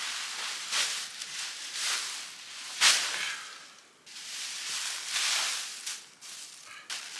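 Dry aspen leaves rustling and crackling as they are scooped up and gathered by hand, in repeated swells with a sharper crunch about three seconds in.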